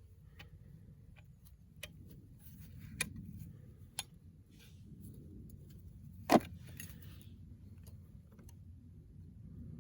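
A few light metallic clicks and taps, with one sharp, much louder click about six seconds in, over a low steady rumble.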